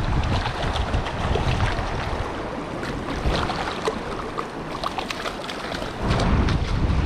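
Wind buffeting the microphone over the steady rush of a small mountain creek. The wind rumble eases through the middle and picks up again about six seconds in.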